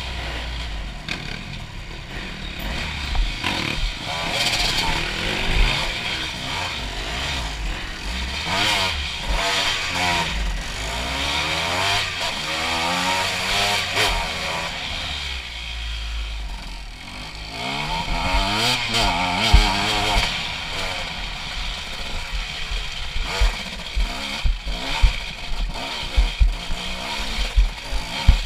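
Honda CRF250 dirt bike's single-cylinder four-stroke engine through an HGS aftermarket exhaust, revving up and falling back again and again at low speed. In the last few seconds, frequent sharp knocks and clatter as the bike goes over rocky ground.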